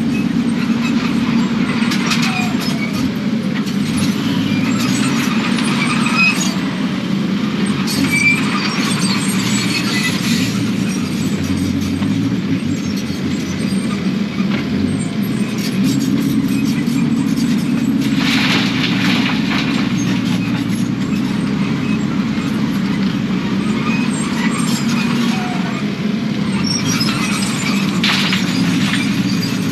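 Kubota KX080 excavator's diesel engine running steadily under working load, with intermittent clanks and scrapes from the machine digging.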